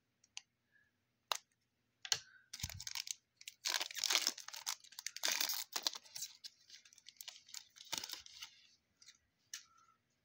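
A foil trading-card pack wrapper being crinkled and torn open by hand. There are a few scattered crackles at first, then several seconds of dense tearing and crinkling, which thins out to a few last crackles near the end.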